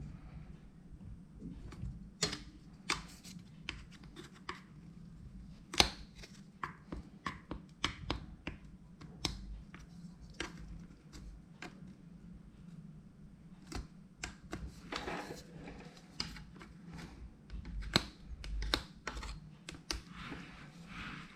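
Irregular light clicks and taps from hands handling small hard objects, a few sharper than the rest, over a low steady hum.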